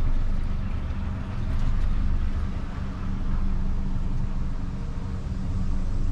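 Outboard motor of a Robalo R272 center console boat running steadily at slow cruising speed: a low, even hum with one held tone.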